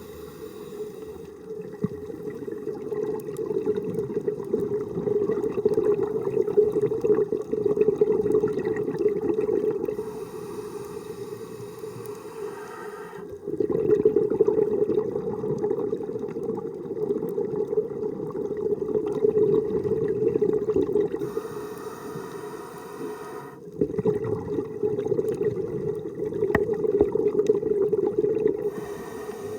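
A scuba diver breathing underwater through a regulator. There are three long exhalations of rumbling bubbles, each lasting several seconds, separated by shorter, quieter inhalations with a faint hiss.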